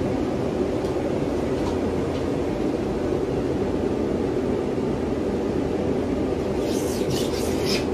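A steady, even machine noise runs throughout. Near the end come a few short scratchy strokes of a hand tool scraping the old coating off a cast-iron bathtub.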